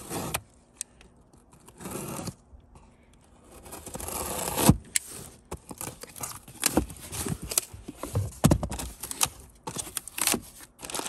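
Utility knife slitting the packing tape on a cardboard box, then the cardboard flaps scraping and tearing as they are pulled open. A longer rasp ends in a sharp crack about four and a half seconds in, followed by scattered sharp cardboard clicks and knocks.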